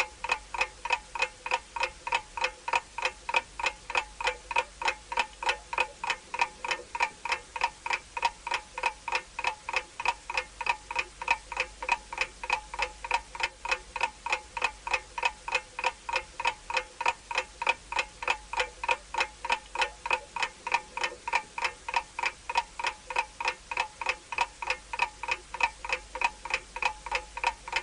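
Ticking countdown-clock sound effect, a steady tick about three times a second with a short bright ring on each tick, marking the time running out.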